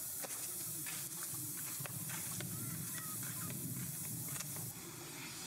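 Steady outdoor background hiss, with a few faint short high chirps and soft ticks scattered through it.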